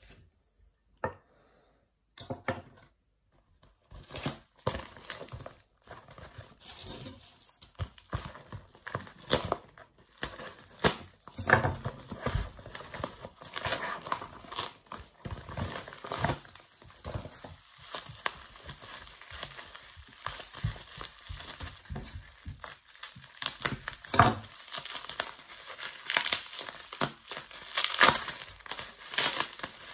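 Plastic packaging and bubble wrap crinkling and rustling as they are unwrapped by hand, almost without a break from about four seconds in. A few light clicks come before it.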